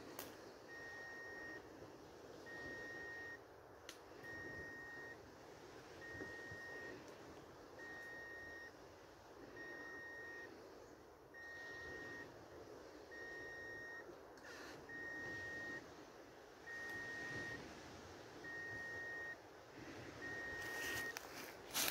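Handheld long-range treasure locator beeping while scanning for a signal: an even, high-pitched electronic tone, about one beep every two seconds, each just under a second long.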